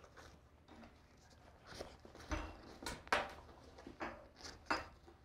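Faint handling noise of a nylon binocular chest pack: a few soft clicks and rustles as bow hanger hooks are fitted onto its MOLLE webbing.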